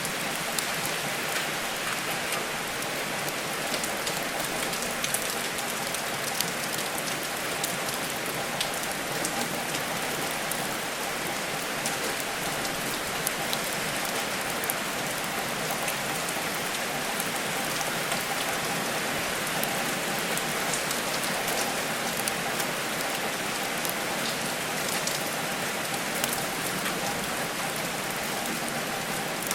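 Steady rain falling on a surface, with scattered small crackles and pops from a wood fire layered over it.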